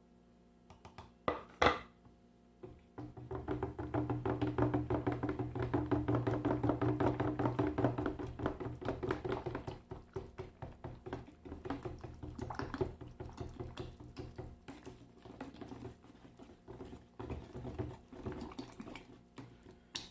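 A spoon stirring wet plaster in a large coffee can: a couple of sharp knocks, then fast, continuous scraping strokes that are busiest for several seconds and then turn lighter and more uneven.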